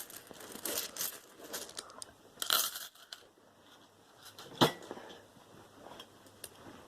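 Rustling and crinkling of small objects being handled on a workbench, in bursts over the first three seconds, then a single knock about four and a half seconds in and a few faint clicks.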